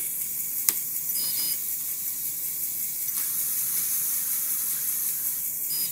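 Motorized LEGO Technic loom running: a steady, hiss-like whir from its motors and gearing, with one sharp click about two-thirds of a second in.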